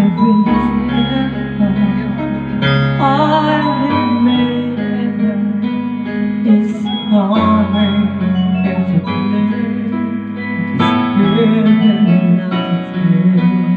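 A man singing through a handheld microphone over instrumental backing music, his voice wavering with vibrato on held notes.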